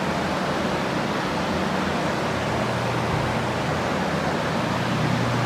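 Dozens of drying fans and a large dehumidifier running together, drying out a flooded building: a loud, steady rushing of air with a low hum that grows stronger about halfway through.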